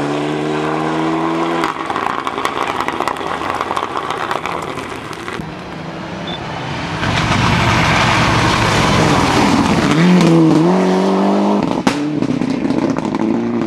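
Rally car engines at full throttle. One engine revs high and cuts off about two seconds in. A stretch of loud rushing noise follows, then an engine note returns near the end, dipping and climbing again as it changes gear.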